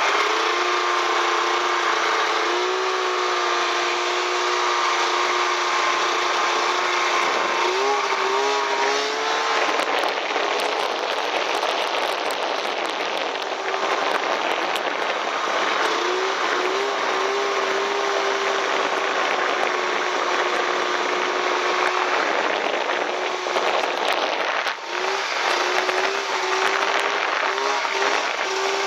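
Snowmobile engine running as it is ridden through deep powder, its pitch rising and falling with the throttle, over a steady rushing noise. A few sharp clicks come about ten seconds in and again near the end.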